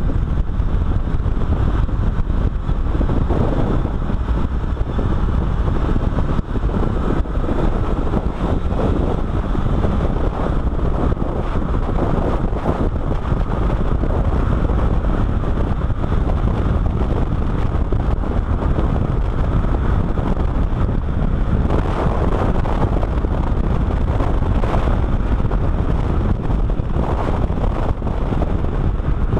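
Car driven at speed on a race circuit, heard through a microphone mounted outside on the door: a steady rush of wind buffeting the microphone over engine and tyre noise.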